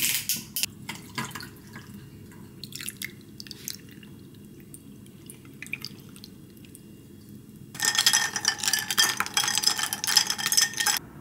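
Ice cubes clinking in a glass: a few clicks as the juice bottle is opened and the pour begins over the ice, then a dense run of ice rattling against the glass from about eight seconds in as the pomegranate juice is stirred, stopping just before the end.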